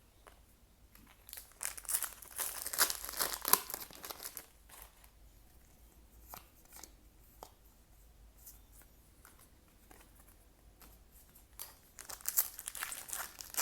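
A foil trading-card booster pack being torn open and crinkled, with a long burst about a second in and another near the end. Between them come a few small ticks and rustles as the cards are handled.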